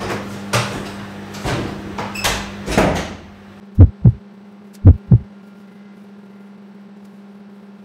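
Midea microwave oven running with a steady low hum while heating. Over this come several rising whooshes in the first three seconds, then two double thumps like a heartbeat about four and five seconds in, the loudest sounds.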